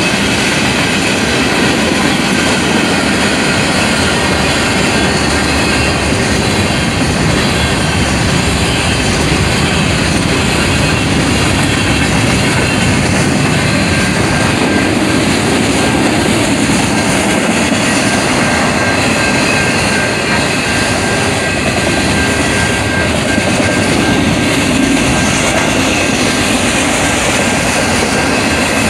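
Long freight train of covered hopper and autorack cars passing close by, its wheels running steadily and loudly over the rails.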